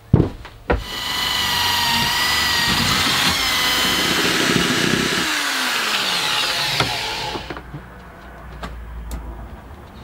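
Electric drill running under power for several seconds, with a steady whine. About five seconds in the pitch falls as it spins down, and it stops about three-quarters of the way through. A couple of knocks come just before it starts.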